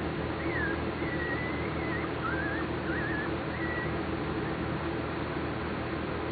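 Newborn German Shepherd puppies giving about five short, high, wavering squeaks in the first four seconds, over a steady background hiss and hum.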